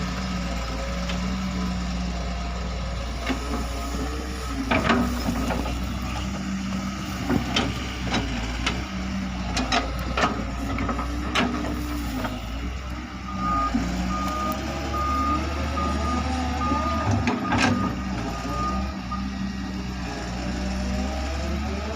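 Excavator's diesel engine running under load, with sharp clanks now and then. In the second half a high-pitched alarm beeps steadily for several seconds.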